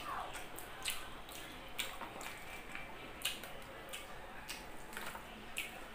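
Close-miked eating sounds of someone chewing a mouthful of grilled pork jowl and rice: irregular wet mouth smacks and clicks, a few each second.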